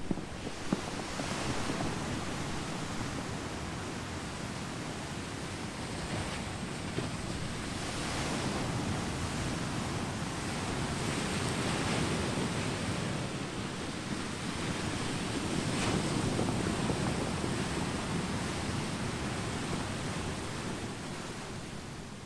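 Pacific surf washing over a beach of smooth volcanic boulders and pebbles, a continuous rush that swells and falls back every few seconds as the waves come in.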